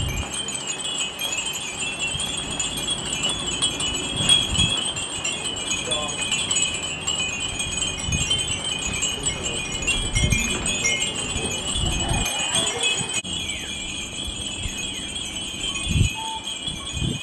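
Many small glass furin wind bells jingling together in the wind in a continuous high tinkling, with a few short low rumbles.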